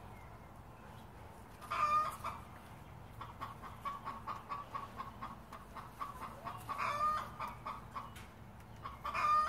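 Chickens clucking: a steady run of short, soft clucks, about three a second, broken by three longer, louder calls about two seconds in, about seven seconds in, and again near the end.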